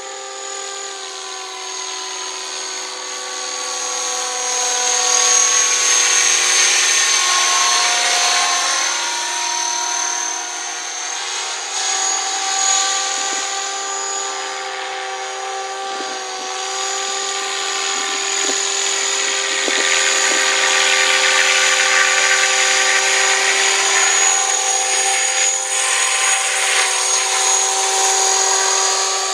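Electric RC helicopter on T-Rex 500 mechanics in flight: a steady high-pitched whine of the motor and gears over the rotor sound. It grows louder twice as the helicopter comes closer, then eases off.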